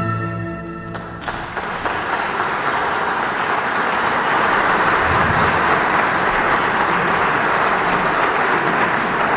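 The final held chord of flute and orchestra fades out, and about a second in the audience breaks into applause, which carries on steadily.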